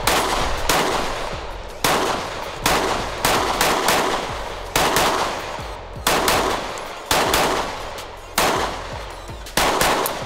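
Springfield Armory XD-M Elite 3.8 compact pistol firing a string of about ten shots, roughly one a second. Each shot is a sharp crack that trails off over most of a second.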